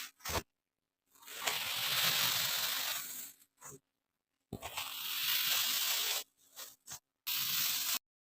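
Kinetic sand being worked by hand, giving a grainy, tearing crackle in three main passes of about two seconds, under two seconds and under a second, separated by dead silence.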